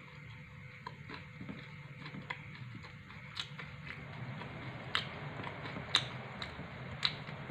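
Chewing a mouthful of pizza, with soft scattered clicks and crunches. In the second half come a few sharper clicks, about one a second.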